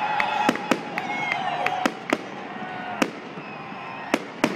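Aerial fireworks display: about half a dozen sharp bangs of bursting shells at uneven intervals, with thin whistling glides between them.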